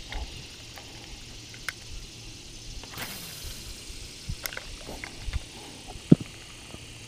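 Scattered small clicks and knocks from a spinning rod and reel being handled in a kayak, with one sharp knock about six seconds in.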